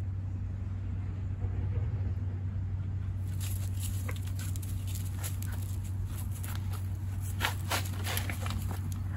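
Footsteps crunching and crackling on dry fallen leaves, with light crackles starting about three seconds in, over a steady low hum.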